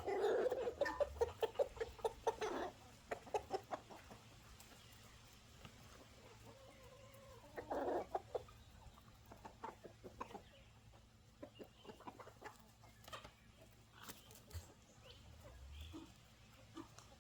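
Chickens clucking, with a loud run of rapid clucks in the first couple of seconds and another short burst about eight seconds in, then quieter scattered clucks.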